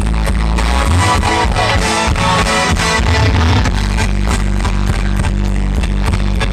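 Live rock band playing loudly, with electric guitar and heavy bass over a steady beat.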